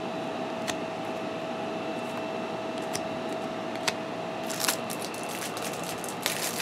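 Paper-stock trading cards being handled and dealt onto piles: a few sharp clicks of card on card and short rustles of sliding cards in the second half, over a steady background hum with a thin constant whine.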